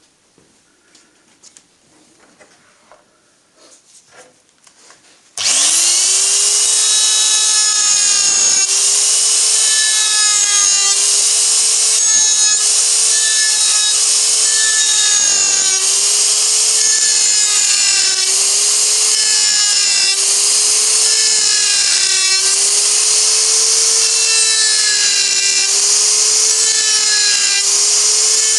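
A Makita GD0600 electric die grinder switches on about five seconds in, after a few faint handling clicks. It spins up quickly to a steady high whine with strong hiss, cutting a burr along a crack in a cast aluminium starter motor end case. The whine sags a little in pitch every second or two as the burr bites into the metal.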